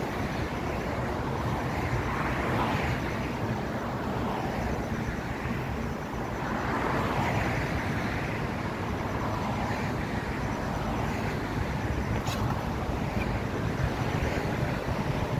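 Road traffic going by: steady tyre and engine noise that swells several times as cars and a truck pass.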